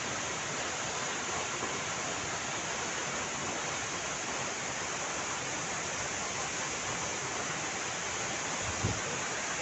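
Waterfall rushing: a steady, even roar of falling water. A brief low bump comes near the end.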